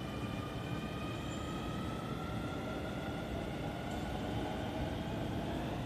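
Yokohama Line electric train at a station: a steady low rumble with several whining tones above it that drift slowly up and down in pitch.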